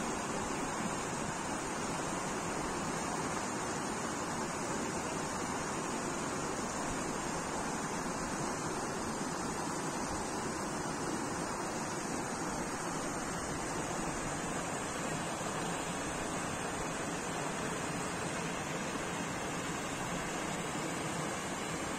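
Shallow rocky stream rushing over boulders in small rapids: a steady, even rush of water.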